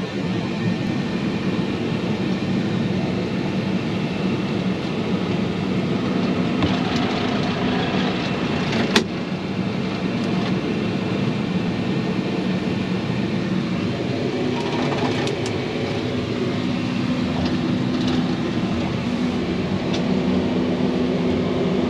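Heavy-equipment diesel engine running steadily, with a single sharp click about nine seconds in.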